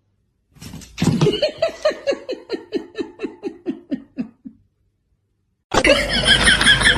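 A person laughing in a run of short 'ha-ha' bursts, about four a second, that falls in pitch and dies away. A loud, dense sound cuts in suddenly near the end.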